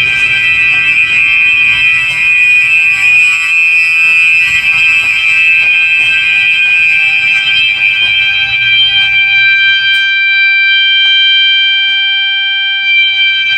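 System Sensor and Gentex fire alarm horns sounding together in a loud, continuous, high-pitched tone. From about ten seconds in, the rougher lower part drops away for a few seconds and only the clean high tone carries on.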